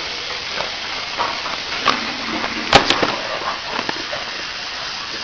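Water running from a tap or shower into a tiled bath in a steady hiss, with a few short sharp knocks, the loudest a double click a little under three seconds in.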